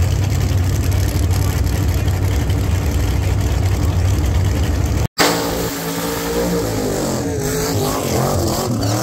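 Drag cars' engines: a loud, steady low rumble for about five seconds, then after a sudden cut a car engine revving up and down during a burnout, its pitch rising and falling.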